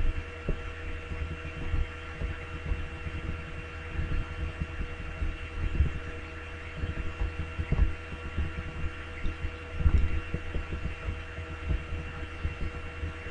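Steady electrical hum with several constant whining tones, picked up by a computer's recording microphone. Irregular soft low thumps come through it, loudest near the middle and about ten seconds in.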